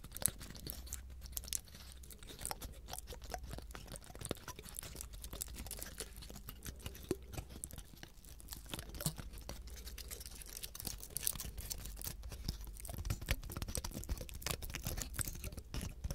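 Fingertips and fingernails rubbing and flicking the scales of a dry pine cone, close-miked: a dense, continuous crackling of small scratchy clicks.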